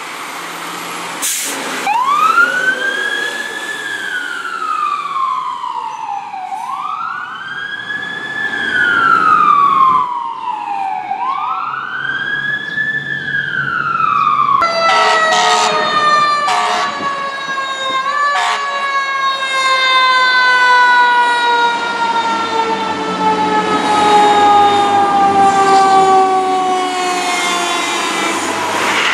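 Fire truck's mechanical siren winding up quickly and coasting down slowly, three times over. Then a second truck's siren winds down in one long, slow falling wail, with a few brief loud blasts near its start.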